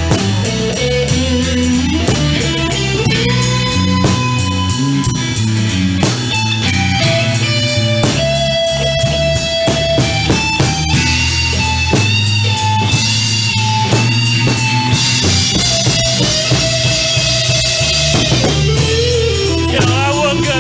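Blues-rock band playing an instrumental passage with no singing: electric lead guitar playing sustained, bending notes over a moving bass guitar line and a steady drum-kit beat.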